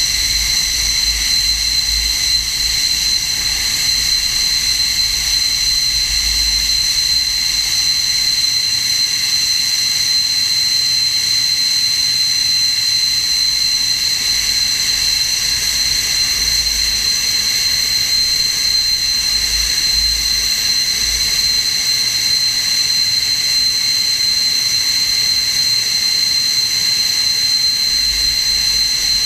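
SEPECAT Jaguar's Rolls-Royce Turbomeca Adour turbofan running steadily on a ground run: a loud, high, even whine over a low rumble.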